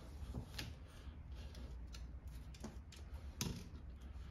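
A microfiber towel wiping a car's rear side-marker lens, faint rubbing with a few light clicks and taps over a low steady hum.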